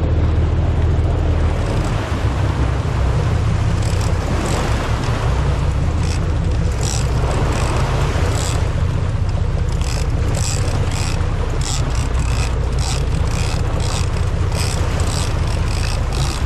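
Offshore fishing boat's engine running with a steady low drone, over rushing water and wind. Short bursts of hiss come from about four seconds in and grow frequent near the end.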